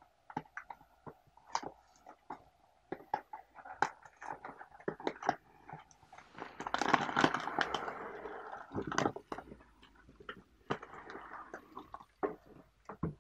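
Paperboard tea box being handled and opened, with scattered clicks and rustles, then a louder crinkling for a couple of seconds about halfway through as the foil bag of loose tea is drawn out and handled.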